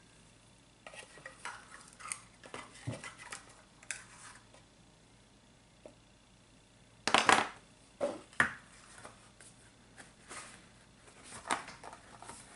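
Plastic measuring spoons clicking and clattering against each other and a baking powder can as half a teaspoon is measured out. The clicks are scattered and uneven, with the loudest cluster of clatters about seven seconds in.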